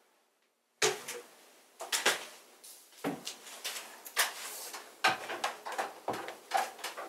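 Irregular knocks, thuds and short creaks, about one or two a second, beginning about a second in and growing busier in the second half.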